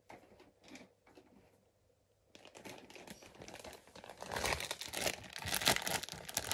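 Plastic wrapping crinkling and tearing as it is handled. It starts after a near-silent pause about two seconds in and gets louder toward the end.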